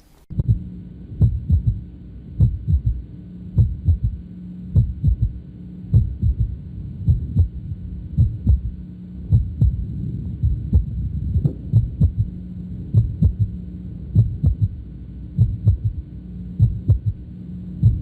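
Heart heard through the bell of a stethoscope at the apex of the left ventricle: a first and second heart sound, then a very prominent low-pitched third heart sound (S3 gallop), the cycle repeating about once every 1.2 seconds. The S3 is the sound of left ventricular failure, generally a dilated, poorly contracting ventricle.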